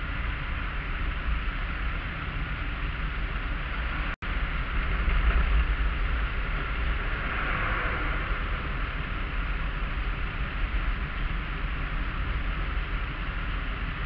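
Inside a moving car: steady engine and tyre road noise with a low rumble, on a rain-wet road. The audio drops out for an instant about four seconds in, and the tyre hiss swells briefly a little past halfway.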